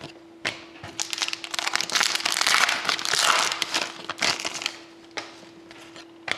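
Glossy trading cards being handled and slid against one another: a dense crackling rustle that starts about a second in and dies away after about four and a half seconds, followed by a few single clicks.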